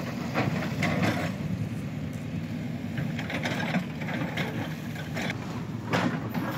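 Backhoe loader's diesel engine running steadily, with scattered knocks and clatters.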